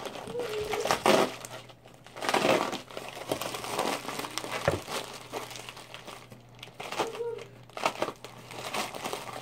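A paper mailing envelope crinkling and rustling as it is handled by hand, in several irregular bursts.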